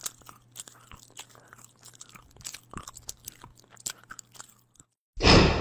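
Faint, irregular crackling and clicking over a low steady hum, then music comes back in with a loud hit about five seconds in that rings on.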